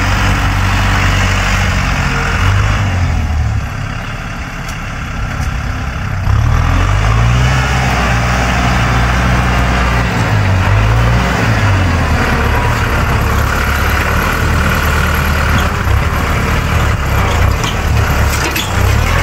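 Farm tractor engine running under load as it pulls a disc plough through dry soil. It eases off and goes quieter about four seconds in, then comes back up, its pitch rising and falling a few times.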